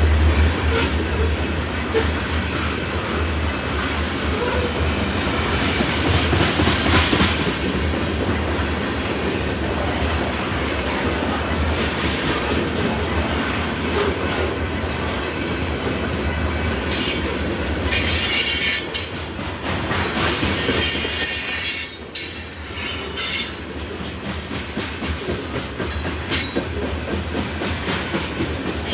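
Loaded grain train rolling past, a steady rumble of wheels on rail. High-pitched wheel squeal comes in about two-thirds of the way through and again near the end.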